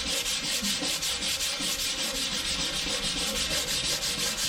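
Hand sanding the bare steel of a petrol tank with 80-grit sandpaper on a sanding pad, in quick back-and-forth strokes, about four a second.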